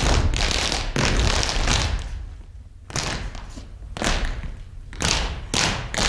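Dancers' feet stomping and landing on a stage floor: sharp thuds roughly once a second, with a quieter gap about two seconds in.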